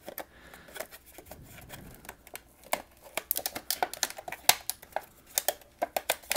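Wire twist ties being untwisted from a cardboard packaging insert with a clear plastic window: irregular sharp clicks and light crinkling of the cardboard and plastic, sparse at first and coming thick and fast after about three seconds.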